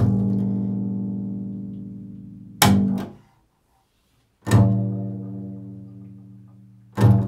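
Upright double bass played pizzicato: four plucked notes. The first and third ring out and fade over about two seconds; the second and fourth are cut short.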